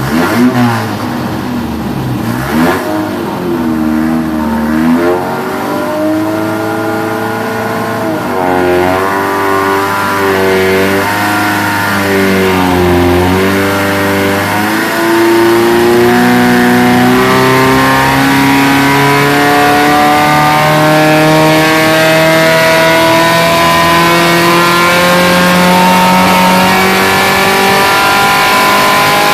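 Triumph TR4 fast-road-tuned inline four-cylinder engine running on an engine dyno. It is blipped a few times early, its revs waver up and down around the middle, and then it climbs steadily and smoothly in revs, louder, through the second half.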